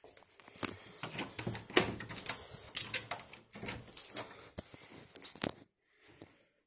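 Footsteps crunching and scuffing over a grit- and debris-strewn floor: a string of irregular clicks and scrapes that stops about five and a half seconds in.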